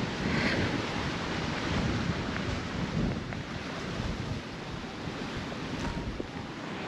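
Strong gusty wind blowing outdoors and buffeting the microphone: a steady rushing noise with an uneven low rumble that rises and falls with the gusts.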